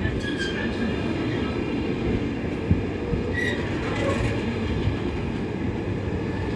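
Container freight train wagons rolling past: a steady rumble and clatter of wheels on the rails, with two brief faint high wheel squeals and one sharp knock about two and a half seconds in.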